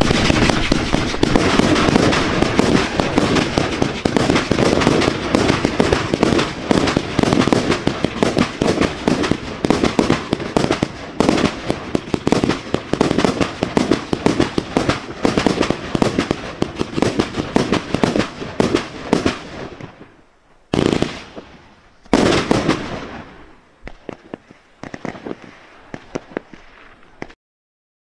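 An 81-shot, 500-gram firework cake firing: a rapid, overlapping string of launches and bursts for about twenty seconds, then after a brief lull two last volleys about a second and a half apart, dying away in scattered pops before the sound cuts off.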